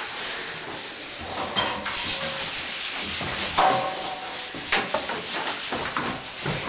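Irregular rough scraping and rubbing strokes against a hard surface.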